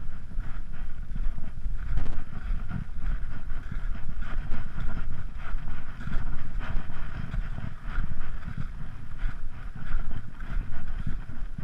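Wind buffeting the microphone with a gusty low rumble, over footsteps crunching on snow and stones about once a second.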